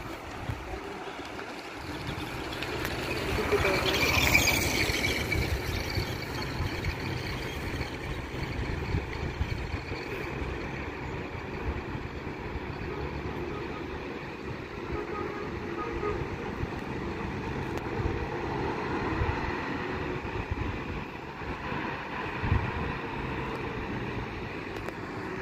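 Motor vehicle engines and road noise on a steep mountain switchback road, a steady rumble with a louder swell about four seconds in.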